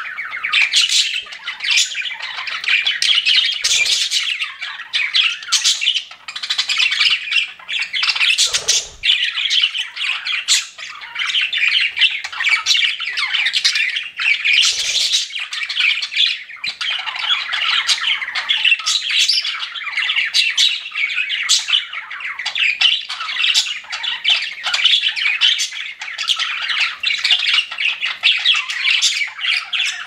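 Pet budgerigars chirping and squawking without pause, a dense run of quick, high chirps.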